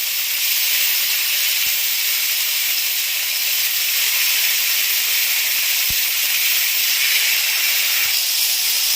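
Chicken breast pieces sizzling steadily in hot olive oil in a frying pan.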